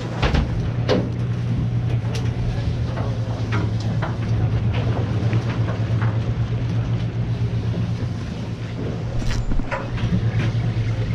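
A party boat's engine running with a steady low drone, with scattered light clicks and knocks over it.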